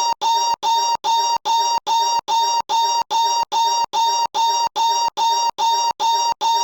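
One short, high-pitched funny noise looped back to back, a little over twice a second, each repeat identical with a steady pitch and cut off by a brief gap of silence.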